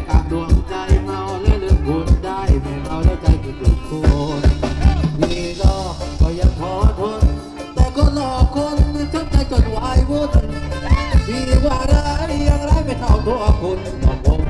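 Live band playing Thai ramwong dance music through a PA system, with a steady drum beat under bending melody lines.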